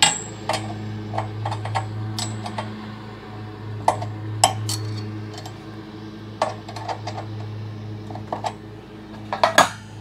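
Irregular metallic clinks and clicks of a wrench and steel winding bar working the set screws on a garage door torsion spring's winding cone as they are loosened, the first clink ringing briefly. A steady low hum runs underneath.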